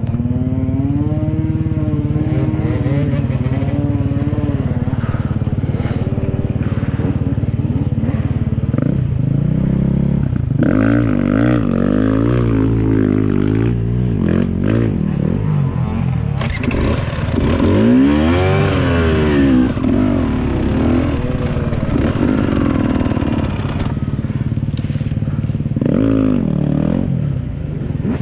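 Dirt bike engine running under load, its pitch rising and falling again and again as the throttle is opened and closed, with the most frequent changes in the middle stretch.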